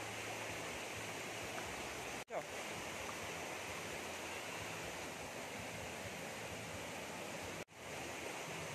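Steady rushing of a shallow stream flowing over rocks. The sound drops out for an instant twice, a little over two seconds in and near the end.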